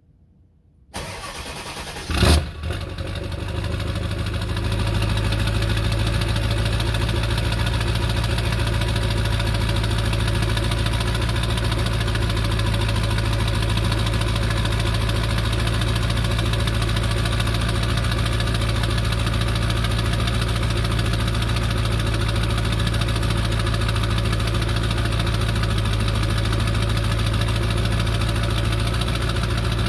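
Ford 7.3 Powerstroke V8 turbo diesel cold-starting after three weeks unused: it cranks briefly, catches with a sharp bang about two seconds in, and settles into a steady idle.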